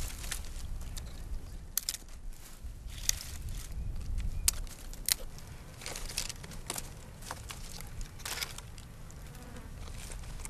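Dry branches and sticks being snapped and handled while firewood is gathered. The sound is a series of sharp cracks and brief crackling rustles at uneven intervals over a steady low rumble.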